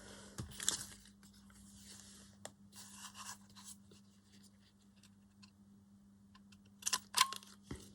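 Paper being handled and rubbed down: faint scratching and rustling in short spells, quieter in the middle, then a few sharp clicks near the end.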